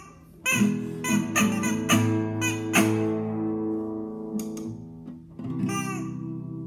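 Acoustic guitar strummed with a rubber chicken used as the pick, the chicken squeaking on many of the strokes. A quick run of chords gives way to a ringing chord that fades from about three seconds in, and the strumming starts again near the end.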